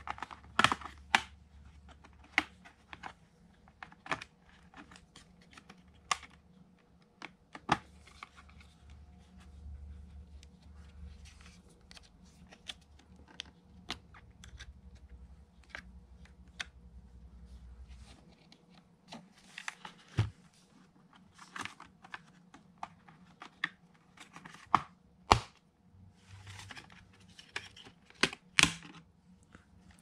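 HP Omen laptop's plastic bottom cover clicking and snapping as its clips are pried loose around the edge, with irregular sharp clicks throughout and a few louder snaps in the second half.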